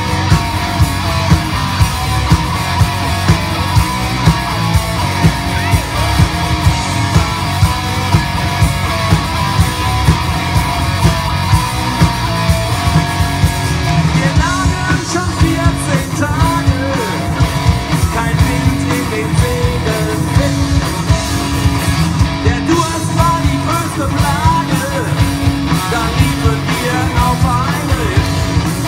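Live rock band playing loudly with drums keeping a steady beat of about two hits a second under bass and electric guitar, with bending melody lines from about halfway through.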